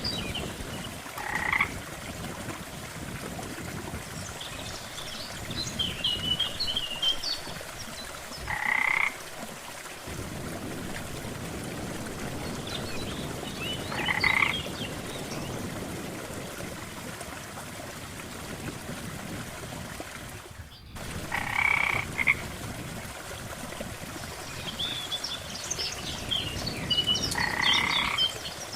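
Frogs croaking, one short croak every five to seven seconds, with scattered higher-pitched chirps between them over a steady background hiss.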